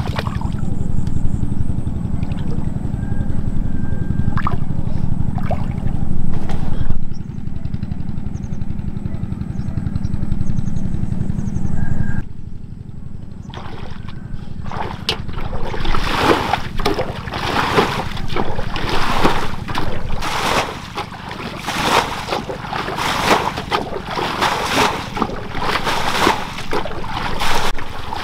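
A steady low rumble, then about halfway through, water splashing and sloshing irregularly.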